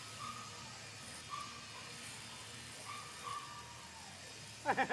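Garden hose spraying water, a steady faint hiss, with a few short high squeaks. A voice cuts in just before the end.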